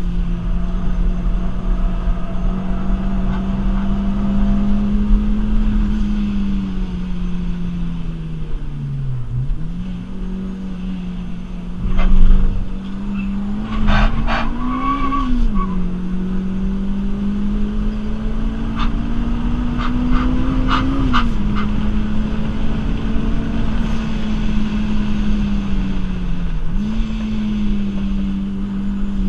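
Supercharged 2ZZ 1.8-litre four-cylinder engine of a Toyota Celica heard from inside the cabin, held at high revs on track. The note dips sharply with lifts or gear changes, twice, and climbs in between. There are several sharp knocks in the middle, the loudest about twelve seconds in.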